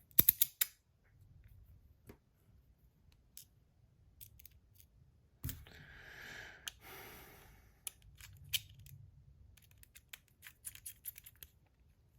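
Small metal parts of a fidget slider clicking and tapping as it is handled and reassembled, with a cluster of sharp clicks about a quarter second in. A longer scraping rustle runs from about five and a half to seven and a half seconds, followed by more scattered clicks.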